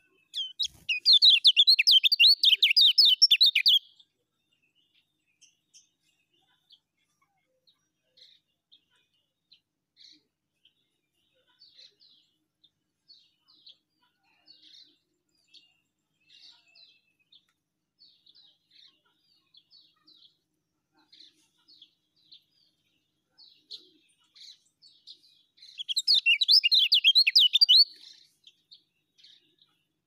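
Kecial kuning, a white-eye, singing in two loud bursts of rapid twittering song, one near the start and one near the end. Between them it gives soft single chirps about every half second.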